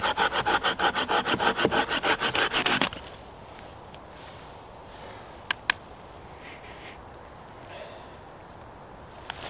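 Hand saw cutting into a dead, resin-soaked stump to get at fatwood, with quick, even strokes for about three seconds before it stops. Two sharp clicks come a couple of seconds later, with faint bird chirps in the background.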